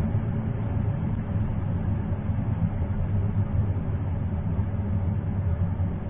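Bottom-freezer refrigerator's evaporator fan running at high speed: a steady low hum with a rush of moving air. A normal operating sound, heard when the doors are opened often, groceries are loaded or the fridge is first plugged in.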